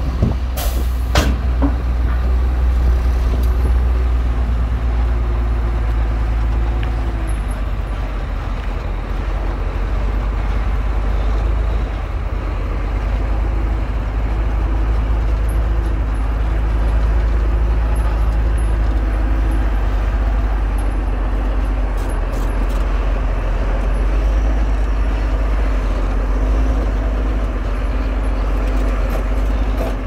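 Heavy diesel earthmoving machinery running hard, a deep steady engine drone whose note shifts up and down a few times. Two sharp knocks in the first second or so.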